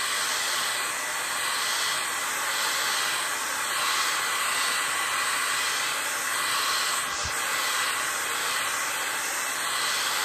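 Handheld hair dryer running steadily, blowing air onto a wet acrylic painting, a constant hiss with a faint high whine.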